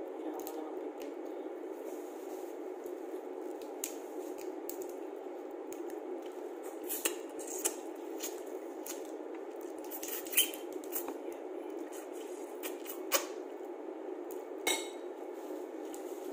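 Cooked crab shell being cracked and picked apart by hand, with scattered sharp clicks and crackles, the loudest about ten and thirteen seconds in, along with sucking at the meat, over a steady background hum.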